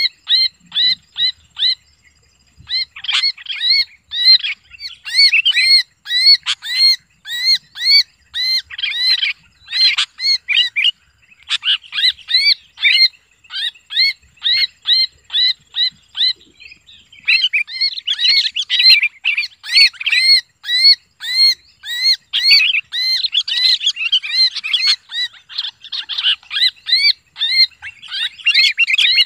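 Sooty-headed bulbul giving harsh distress screams while held in the hand, about four calls a second, with a few short pauses. The calls come thicker and overlap in the second half.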